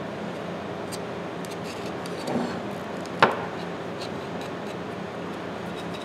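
A small brush dabbing and rubbing cold bluing onto the steel of a pair of tongue-and-groove pliers, faint and scratchy over a steady low room hum. One sharp click about three seconds in.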